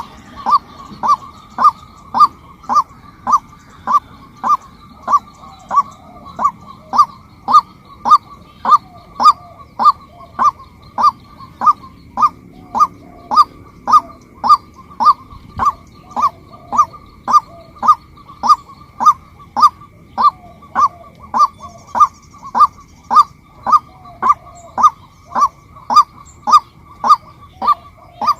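Female white-breasted waterhen calling: one short note repeated evenly about twice a second, each note dipping in pitch at its end. A faint steady high tone runs underneath.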